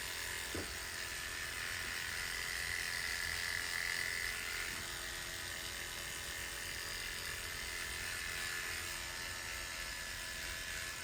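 Electric hair clippers running steadily while shaving the back and sides of the scalp.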